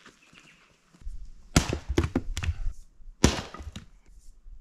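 Firewood being chopped with an axe: a few sharp blows of the blade into wood, the first about one and a half seconds in, over a low rumble.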